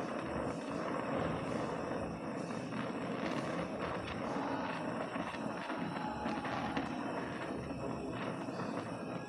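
Oxy-acetylene welding torch flame hissing steadily while fusion-welding copper sheet with a filler rod, with occasional light crackles.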